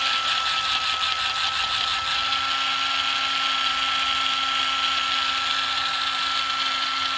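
Makita 9.6 V cordless impact driver running free with its trigger held, a steady high motor whine with hiss, a little noisy.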